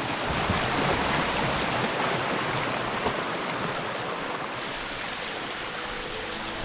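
Rushing river water, a steady rush that is loudest in the first couple of seconds and then eases slightly.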